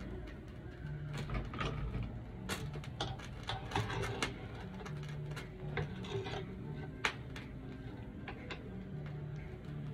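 A stainless wire-mesh skimmer clinks and scrapes in a wok as pieces of boiled chicken are scooped out of the broth. The knocks and clicks are irregular, with one sharper knock about seven seconds in.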